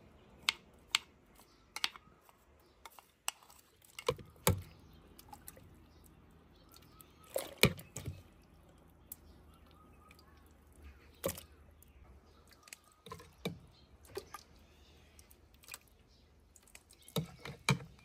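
Irregular sharp clinks of a stainless steel ladle and spoon knocking against a stainless pot and a glass jar, with kimchi brine sloshing as it is ladled in.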